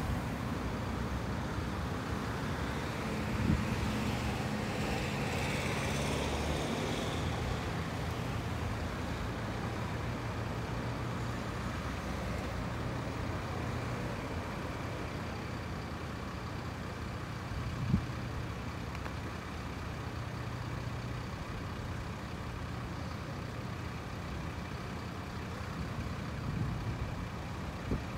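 Slow-moving road traffic: the engines of a queue of cars, vans and a coach running with a steady hum, and a louder vehicle passing a few seconds in. A single sharp knock comes about eighteen seconds in.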